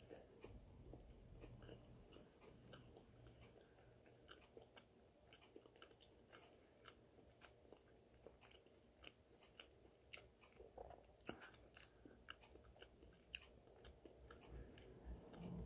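Faint close-to-the-mic chewing of a mouthful of food, heard as soft irregular clicks.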